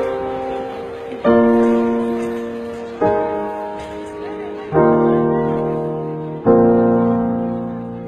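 Slow piano soundtrack music: a sustained chord is struck about every one and three-quarter seconds and left to ring and fade before the next.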